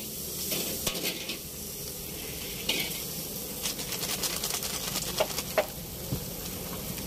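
Steady sizzling hiss of oil frying, with a few faint clicks and knocks of utensils scattered through it.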